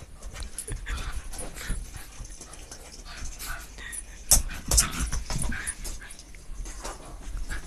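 A Shiba Inu playing with a new toy: a run of knocks and clatter from the toy, the sharpest two a little past halfway, mixed with the dog's own small whimpering sounds.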